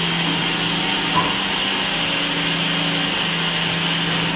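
Haas VF-6SS vertical machining center running with a steady high-pitched whine and hiss over a low hum, while its side-mount tool changer arm swings toward the spindle to change a tool.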